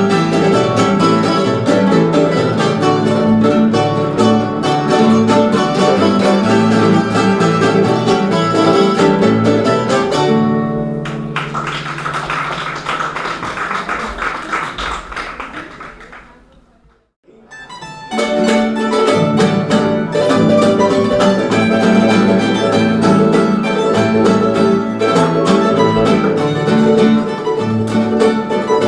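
Folk string ensemble playing, led by guitars and other plucked strings. About ten seconds in the playing breaks off and dies away to a brief silence, then the music starts up again a few seconds later.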